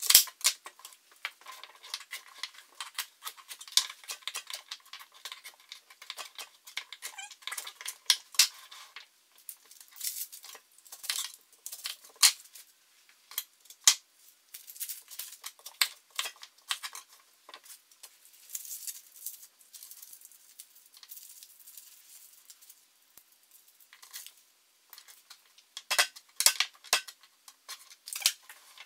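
Chef's knife chopping vegetables on a plastic cutting board: irregular knocks of the blade striking the board, with softer rustling as onion skin is peeled by hand partway through, and a run of louder chops near the end.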